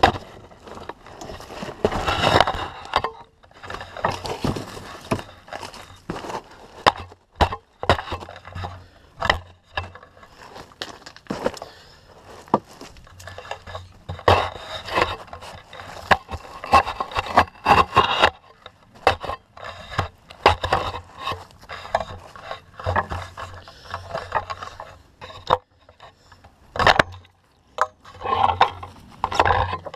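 Knife-tipped spear jabbing and scraping at cardboard and wooden targets: many sharp knocks and stretches of scraping. Rattling and rubbing comes through the GoPro mounted on the spear's shaft.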